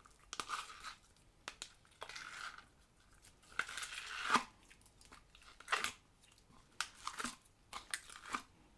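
Old slime being squeezed and pulled apart by hand: irregular sticky crackling and popping with a few sharp clicks, loudest about four seconds in.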